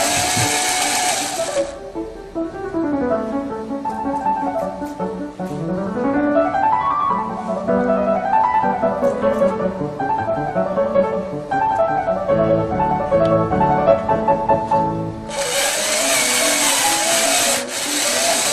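Instrumental background music with a piano-like melody throughout. The motor of a homemade ball-launching machine whirs loudly for the first couple of seconds and again for the last few seconds.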